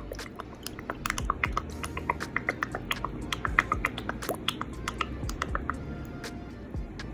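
Hot sauce shaken from a bottle into a pan of milky liquid: an irregular run of small clicks and splats from the drops, densest in the middle and thinning near the end.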